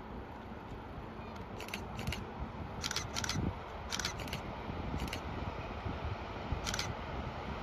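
A steady low outdoor rumble with eight short, sharp clicks at uneven intervals.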